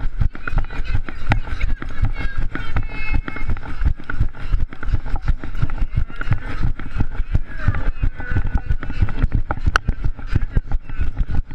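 A runner's footfalls and a hand-held GoPro knocking and rubbing in the hand with every stride, over the voices of spectators along the course.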